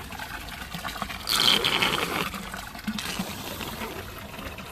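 Standing rainwater draining through a just-unclogged sailboat cockpit drain, trickling and gurgling steadily, with a louder gush about a second and a half in.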